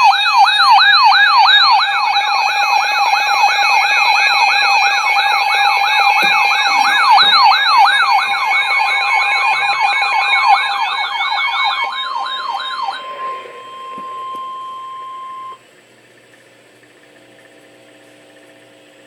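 Electronic alert siren sweeping rapidly up and down, about four sweeps a second, over a steady tone: the alarm that opens an emergency alert broadcast for a severe thunderstorm warning. The sweeping stops about 13 seconds in, the steady tone holds for two more seconds, and then only a faint hum is left.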